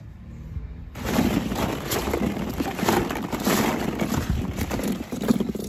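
Hollow plastic ball-pit balls clacking and rustling against each other as a hand digs through them, a dense run of small knocks starting about a second in.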